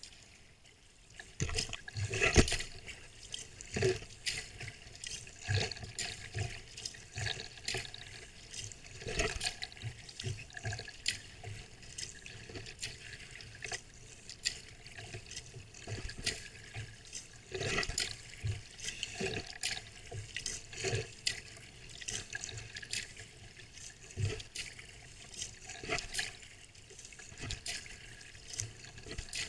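Sea kayak paddle strokes splashing and dripping, with water lapping against the hull, every second or two.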